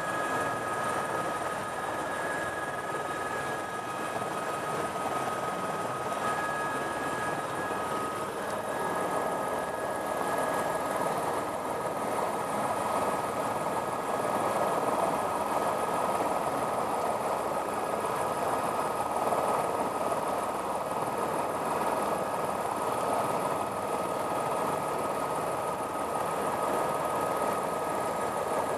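Helicopter turbine engine and rotor running steadily, heard from inside the cabin. A thin high whine fades out about eight seconds in, and the noise grows slightly louder about halfway through.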